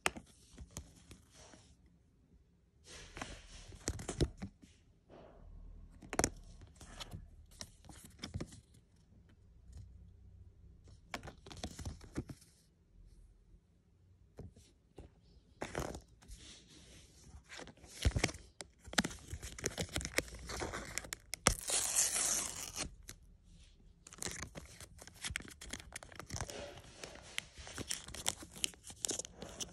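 Panini paper stickers and a foil sticker packet handled by hand: irregular rustles and light taps as stickers are flicked through, with a longer stretch of packet tearing and crinkling about two-thirds of the way in.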